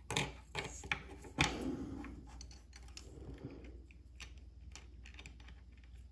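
Small irregular clicks and taps of a watch movement being handled by fingertips on a bench mat: a few sharper clicks in the first second and a half, then fainter scattered ticks.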